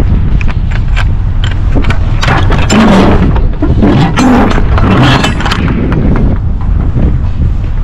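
Semi-trailer's metal rear swing door being unlatched and swung open: clanks, knocks and scrapes, busiest in the middle, over a steady low rumble.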